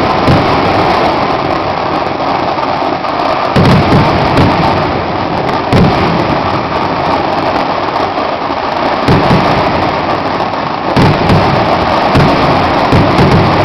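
Kerala temple fireworks (vedikkettu) going off in a loud, unbroken barrage of massed firecrackers: dense crackling with heavier booms standing out every second or two.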